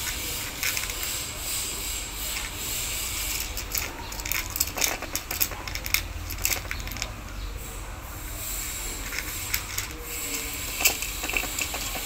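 A cat crunching dry kibble: irregular sharp crunches and clicks, busiest in the middle and again near the end, over a steady hiss.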